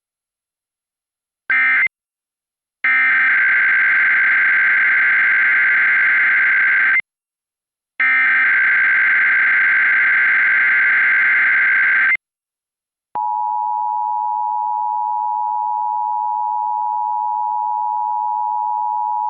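Emergency Alert System broadcast tones: a short burst and then two long bursts of the SAME digital header, a warbling data screech each lasting about four seconds. They are followed, about 13 seconds in, by the steady two-tone EAS attention signal, which holds on.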